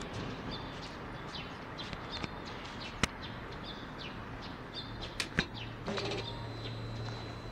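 Small birds chirping repeatedly, short high calls, with three sharp clicks: one about three seconds in and two in quick succession a little after five seconds.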